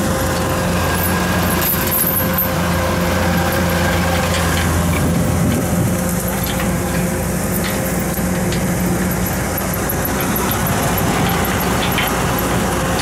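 An engine running steadily at a low, even speed, its low hum shifting slightly about five seconds in, with a few light clicks over it.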